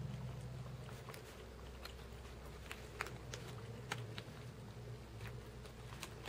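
Cats chewing and eating, heard as scattered faint sharp clicks of teeth and mouths on food over a steady low hum.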